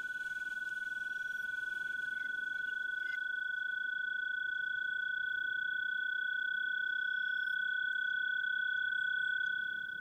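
Sustained electronic tone from the soundtrack music: two steady, high, pure pitches held together, fading out near the end.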